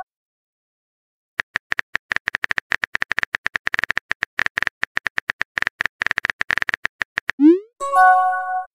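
Rapid clicks of a phone-keyboard typing sound effect, starting about a second and a half in and running for about six seconds. Then comes a short rising swoop and a bright multi-note chat chime as a new message arrives.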